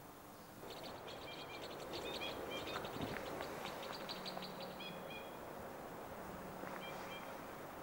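Two-barred crossbills calling: a quick, dense series of short dry call notes with a few short flat nasal notes among them, busiest in the first five seconds and again briefly near the end. A soft low knock about three seconds in.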